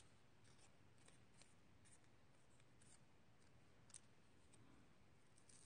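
Near silence, with faint scattered ticks and snips, about one or two a second, from small handwork with craft materials at the desk.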